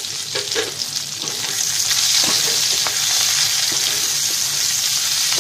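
Sliced onions sizzling in hot oil in a metal wok, stirred with a metal spatula that scrapes and knocks against the pan. The sizzle grows louder about a second and a half in.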